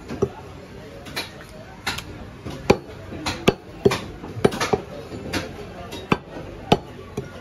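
Heavy butcher's cleaver chopping beef on a wooden log chopping block: about a dozen sharp, separate strikes at an uneven pace, roughly one or two a second.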